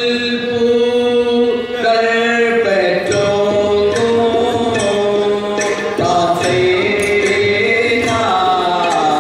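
Chavittu Natakam song: a voice sings a chant-like melody in long, held notes that change pitch every second or two, with a few sharp percussive strikes.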